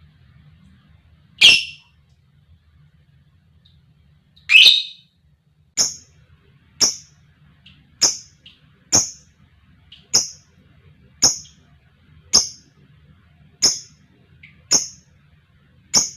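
Lovebird calling in short, sharp, high shrieks: two louder calls, then a steady run of single calls about once a second.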